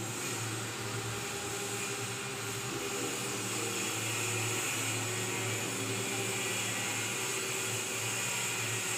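A steady mechanical whir with a low hum.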